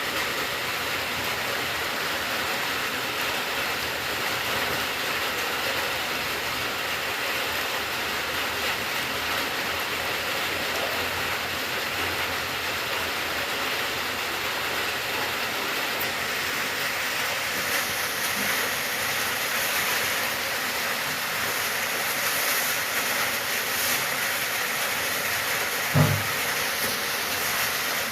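Steady rain falling, an even hiss, with one brief low thump near the end.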